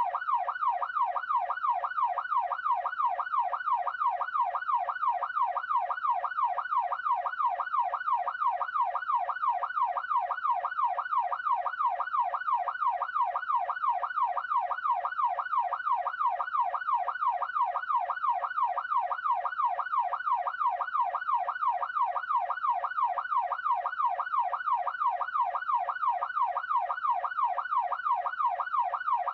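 Electronic police siren sounding a rapid, steady up-and-down wail that repeats evenly without a break.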